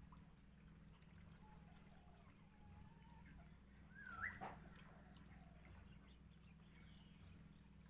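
Quiet background with a low steady hum, broken about four seconds in by one short animal call that rises in pitch. A fainter call comes a little earlier.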